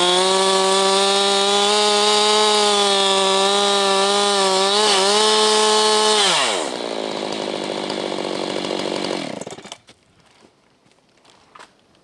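Husqvarna 390XP two-stroke chainsaw running at full throttle with a high, steady note, likely milling through a pine stump. About six seconds in, the throttle is released and the pitch drops quickly. The saw runs on more quietly for about three seconds and then cuts off suddenly.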